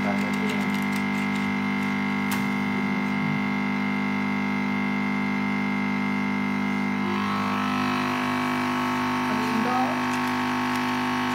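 Background music of steady held chords, changing to a new chord about seven seconds in.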